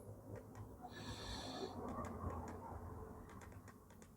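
Faint handling noise: a few light clicks and taps with a soft breath-like hiss about a second in.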